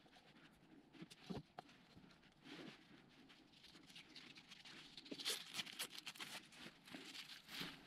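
Faint rustling and light clicks of a new tennis overgrip being handled, taken from its tube and unrolled, with the handling noise denser in the last few seconds.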